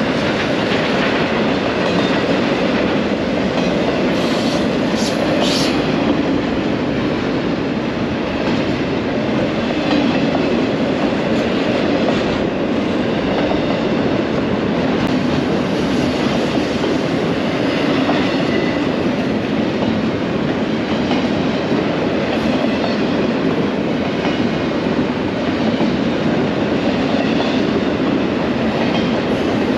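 Double-stack intermodal freight train rolling past close by: the steady, loud rolling noise of steel wheels on rail as the container-laden well cars go by.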